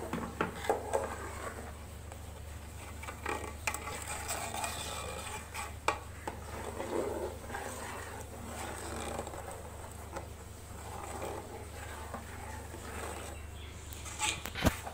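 A steel ladle stirring thin gram-flour and yogurt kadhi batter in an aluminium pot, with scattered sharp clinks of the ladle against the pot, over a steady low hum.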